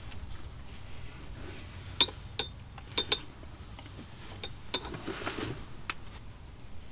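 Household clutter being handled and moved: a handful of sharp clicks and knocks of hard objects, the loudest pair about three seconds in, with some rustling in between.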